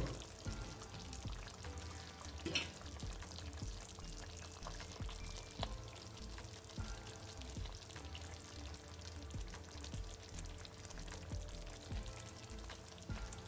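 Sweet and sour sauce simmering in a pot with pieces of fish, a soft crackling bubble throughout, while a spoon ladles the sauce over the fish. One sharper tap about two and a half seconds in.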